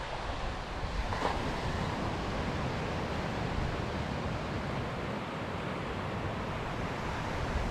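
Steady hiss of surf breaking and washing over rocks and sand, with light wind on the microphone.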